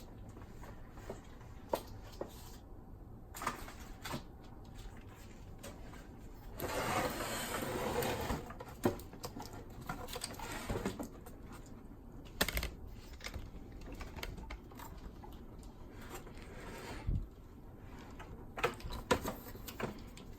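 Plastic boombox case being handled and pried apart: scattered clicks and knocks of plastic parts, with a longer scraping rustle lasting about two seconds a third of the way in.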